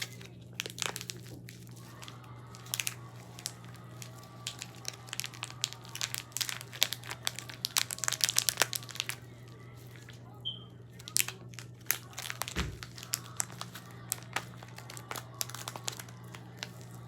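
Crinkling and crackling of plastic packaging in irregular bursts as a slime toy is opened and handled, over a steady low hum.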